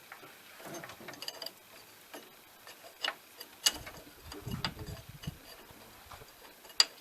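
Scattered metallic clicks and clinks of hand tools at work, with a few sharp knocks and a brief low rumble around the middle.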